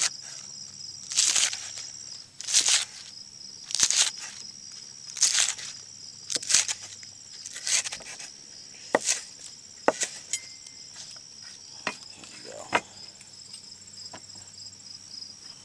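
A knife slicing green onions on a cutting board at an angle, one crisp cut about every second and a quarter, more spaced out near the end. A steady high chirring of insects runs underneath.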